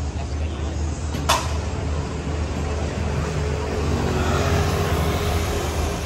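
Road traffic: a steady low rumble of passing cars and motorcycles, a little louder a few seconds in, with one sharp click about a second in.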